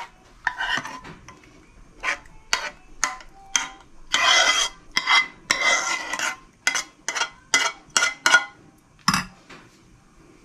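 Metal spoon scraping thick white sauce out of a metal pot: a quick series of short scrapes and clicks, with two longer scrapes about four to six seconds in and a duller knock near the end.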